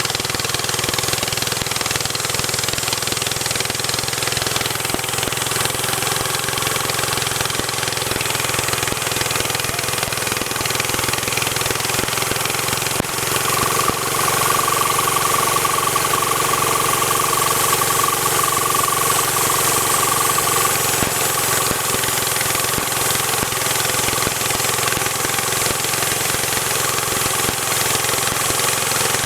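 Engine of a homemade tree-cutting machine running steadily. A higher whine comes in about halfway through and fades out several seconds later.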